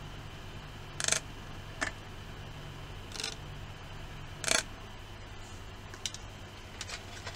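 Handling noise: a handful of short scrapes and clicks as a plastic magnetic-viewing film is moved about against a motor's magnet rotor and housing, the two loudest about a second in and about four and a half seconds in, over a faint low hum.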